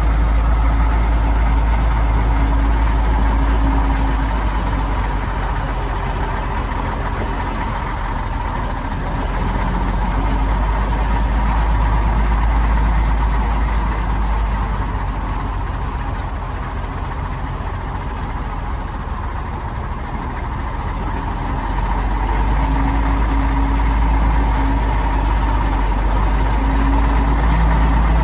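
Caterpillar 14G motor grader's diesel engine running steadily with a low rumble, easing off slightly in loudness midway and coming back up.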